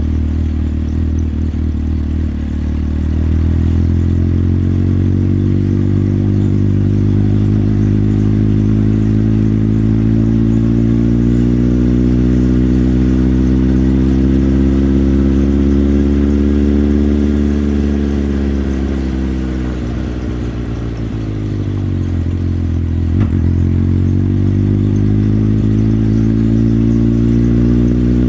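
Motorcycle engine running under way, its pitch climbing slowly as it pulls, dropping as it slows about two-thirds of the way through, with a single sharp click just after, then rising again as it picks up speed.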